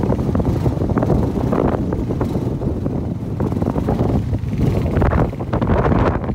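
Wind buffeting a phone's microphone in a loud, steady rumble, with stronger gusts near the end.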